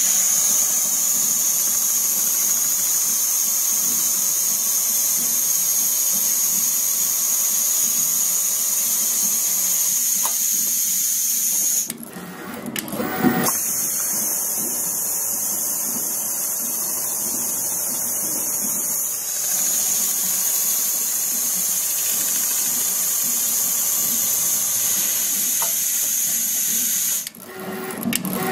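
Richpeace automatic pattern sewing machine stitching a shoe upper. It runs with a steady high-pitched mechanical whir, which drops out briefly about twelve seconds in and again near the end.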